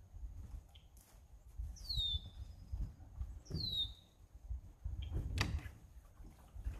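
Two short, high bird calls, each sweeping downward in pitch, about a second and a half apart, over a low rumble, with a sharp knock about five seconds in.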